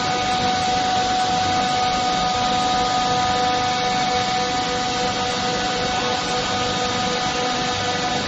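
Industrial machinery running with an even drone and steady whining tones throughout.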